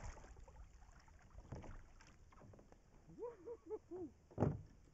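A bass being fought and landed beside a kayak: scattered splashing and knocks against the hull. A quick run of four short pitched calls comes about three seconds in, and the loudest sound is a single sharp thump near the end.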